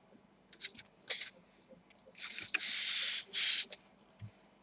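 A laptop being handled on a work surface for testing: short rubbing and scraping noises, a few quick ones in the first second and a longer, louder pair around the middle.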